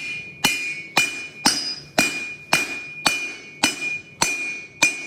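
Hand hammer striking a railroad spike on an anvil during forging, about ten blows at an even pace of roughly two a second. Each blow rings, and the ring carries on between blows and fades away after the last one.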